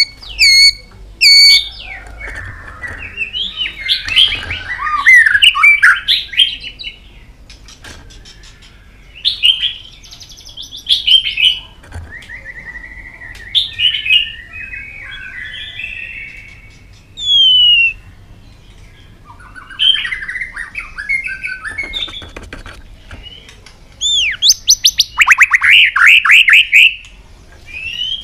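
White-rumped shama singing a loud, varied song of whistled phrases, quick trills and glides, with sharp clicks between phrases. Near the end comes a fast run of falling notes.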